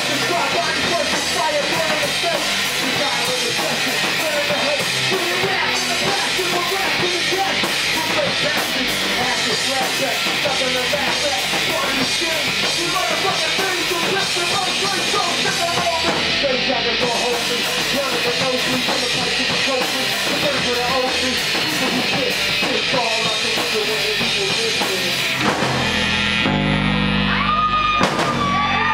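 Live rock band playing loud and distorted: drum kit with crashing cymbals, electric guitar and vocals into a microphone. Near the end the cymbal wash thins and a heavy low chord takes over, with a steady high tone held over it.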